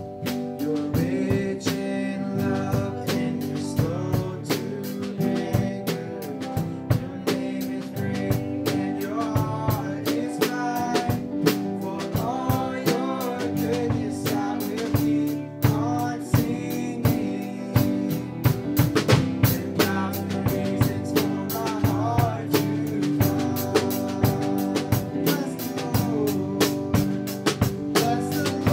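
Small band playing a worship song: drum kit keeping a steady beat under strummed acoustic and electric guitars and keyboard, with voices singing the melody over it.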